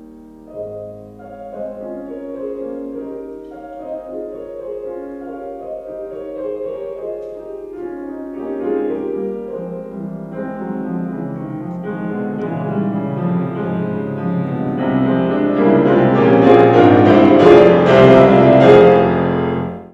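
Petrof grand piano played solo in a classical piece, building steadily from moderate to very loud, with dense full chords across the keyboard in the last few seconds. The sound cuts off abruptly at the very end.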